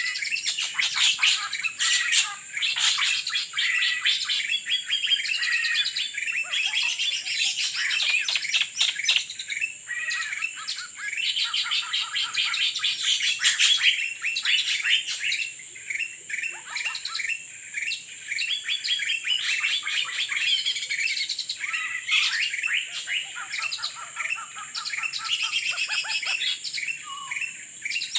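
Dense, overlapping chirps and calls of small birds, with a steady high-pitched whine running underneath.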